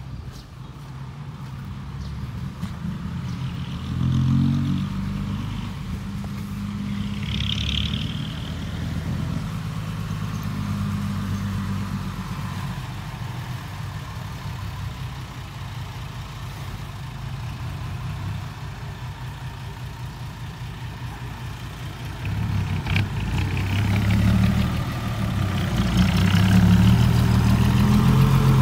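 Heavy diesel dump truck engine running as a loaded Isuzu dump truck maneuvers on the fill site, growing louder over the last few seconds as it comes close. A brief higher sound is heard about 8 s in.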